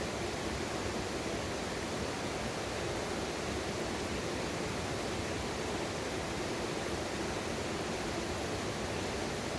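Steady rushing of water in a mountain stream.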